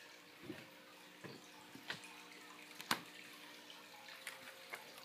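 Several faint, separate clicks and knocks of kitchen items, such as jars, being handled, the loudest about three seconds in, over a faint steady hum.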